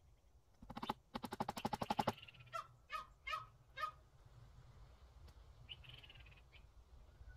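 Poultry calling: a fast rattling run of about a second and a half, then four short squawks in quick succession, and one fainter call a few seconds later.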